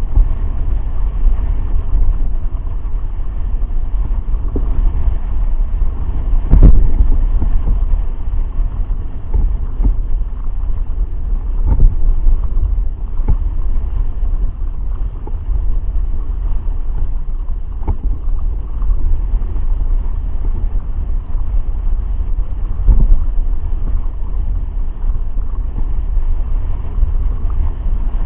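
Steady low rumble of wind and water rushing past the camera while riding a hydrofoil board at speed, with the foil mast cutting through the water. A few knocks stand out, the loudest about a quarter of the way in.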